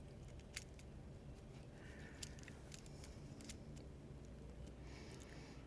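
Faint scratching and a few light clicks of solder wire rubbed against a soldering iron tip that is not hot enough to melt it.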